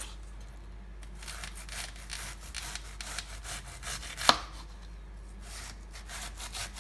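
Bread knife slicing a half head of cabbage into thin shreds on a wooden cutting board: a run of quick slicing strokes, with one sharp knock of the blade on the board a little past four seconds in.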